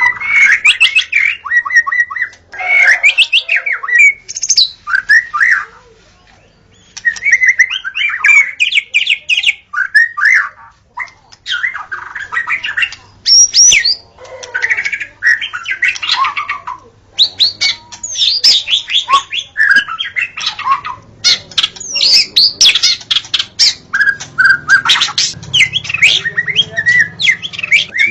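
White-rumped shama singing a loud, varied song of quick whistled and chattering phrases, in bursts separated by short pauses.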